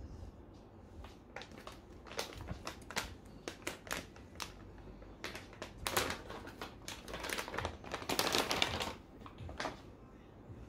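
Crinkling plastic-and-foil packaging bag being handled and opened as a plush bear pouch is pulled out of it. It is a run of crackles starting about a second in, becoming a dense, louder rustle in the last few seconds before it stops.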